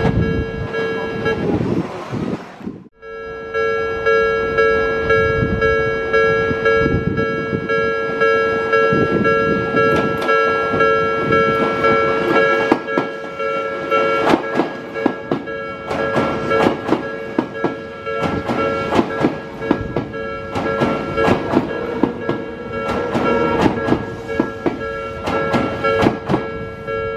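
Japanese railway level-crossing warning bell ringing steadily while an electric commuter train runs past, its wheels clacking over the rail joints in a fast, irregular run. The sound cuts out abruptly for about a second, about three seconds in, then resumes with the bell and the passing train.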